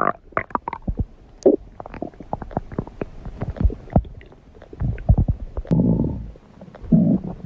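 Human stomach growling: a string of small irregular pops and gurgles, then two longer rumbles about five and seven seconds in.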